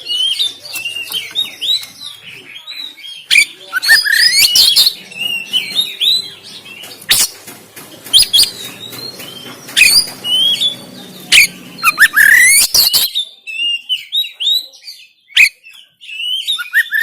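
Oriental magpie-robin singing a loud, fast, varied song of rising whistles and harsh chattering notes, broken by sharp clicks, with the song thinning out near the end.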